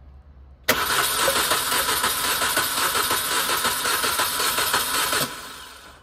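Starter motor cranking the Mini Cooper R50's 1.6-litre four-cylinder petrol engine for a compression test. It starts just under a second in and stops after about four and a half seconds. Cylinder three holds good compression, around 9 bar.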